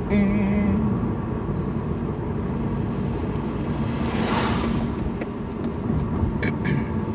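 Steady road and engine rumble inside a moving Toyota car's cabin, with a broad whoosh of a passing vehicle swelling about four seconds in.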